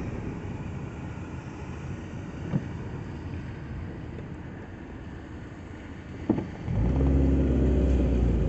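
Car engine and road noise heard from inside the cabin while driving slowly, with a couple of light ticks. About two-thirds of the way in, the engine gets markedly louder with a steady low drone as the car pulls away.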